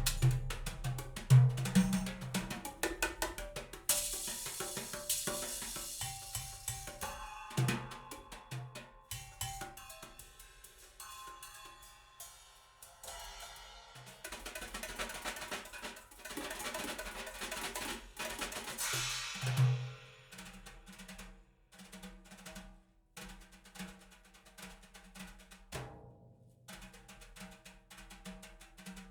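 Recorded drum-led instrumental music played through Elfton Vegas II four-way hi-fi loudspeakers: a busy run of drum hits with deep kick thuds and two long bright washes, growing sparser and softer in the second half.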